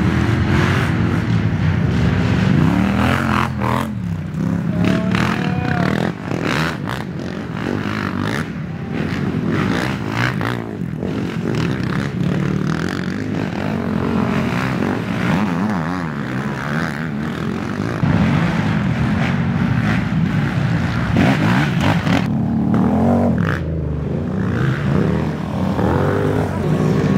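Racing ATV engines running hard, their pitch rising and falling again and again as the quads accelerate, shift and back off, with more than one engine heard at once.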